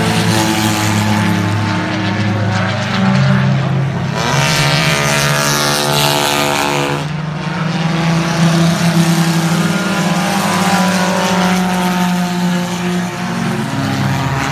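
Several race car engines running at speed. One louder, higher engine note rises in about four seconds in, holds for about three seconds, then drops away.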